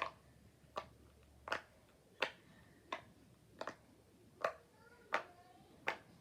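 Silicone pop-it fidget toy popping as its bubbles are pressed in on the good side, one sharp pop about every 0.7 seconds, nine in all.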